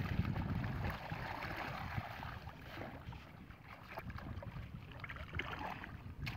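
Shallow muddy water sloshing and splashing as hands and legs work through it, with wind buffeting the microphone. It is louder in the first second.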